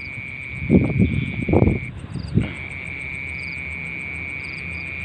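Night insect chorus: a steady high-pitched trill with a faster ticking pulse above it, the trill breaking off for about half a second near two seconds in. A few brief low bumps about a second in are louder than the chorus.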